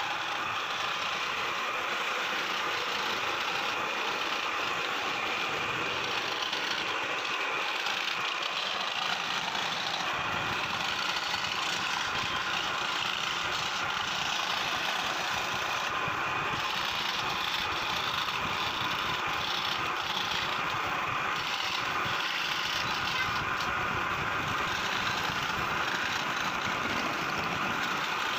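Wooden-framed scroll saw running steadily, its fine blade cutting up and down through a thin carved wooden plate along the Arabic lettering: a continuous, even sawing noise.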